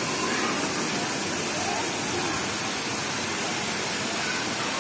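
Steady rush of water running down waterpark slides, with faint voices in the background.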